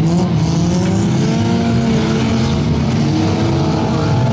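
Several racing car engines running at once, revving up and down, their pitches rising and falling over one another.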